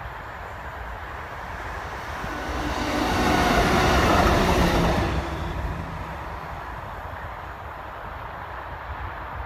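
Plasser & Theurer 09-2X track tamping machine running past on the rails. The sound of its machinery and wheels grows to a peak about three to five seconds in, then fades as it moves away.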